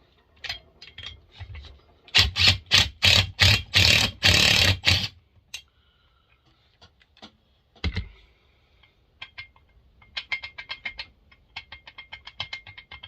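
Hand tools working on a McCulloch 7-10 chainsaw during teardown: a run of about ten loud knocks at roughly four a second, then a single knock and fast, light clicking near the end, as a nut is worked loose.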